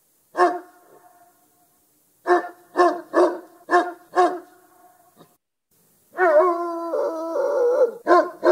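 A Great Dane barking: a single bark, then a run of five quick barks. About six seconds in comes a drawn-out, wavering howl lasting about two seconds, and another bark follows near the end.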